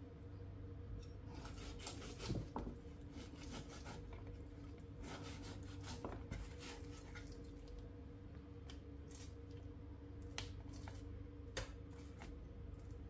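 A kitchen knife slicing through raw pork belly on a wooden cutting board: quiet sawing and scraping strokes with occasional knocks of the blade against the board. A faint steady hum runs underneath.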